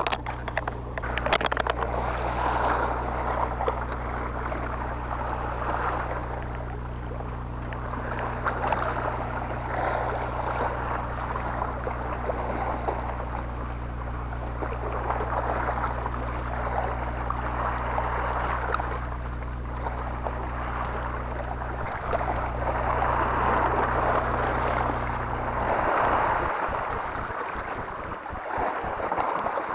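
Sea waves surging against shoreline rocks, the wash swelling and falling back every few seconds over a steady low hum. A few sharp clicks come in the first second or two.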